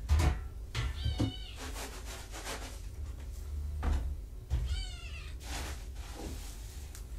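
Cat meowing twice: a short meow about a second in and a longer, wavering one near five seconds in, with a few light knocks between them.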